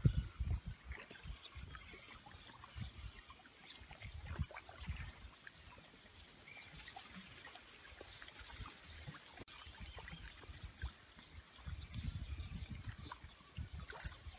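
Small waves lapping and trickling against a rocky stone shore, with faint little splashes and an uneven low rumble that swells at the start and again near the end.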